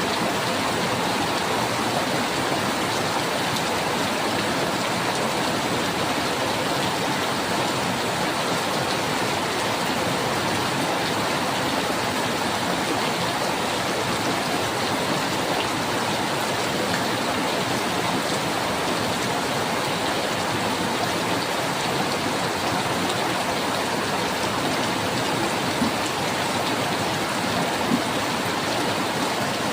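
Steady, heavy rainfall, an even hiss of rain with no letup, with a couple of faint sharp drips near the end.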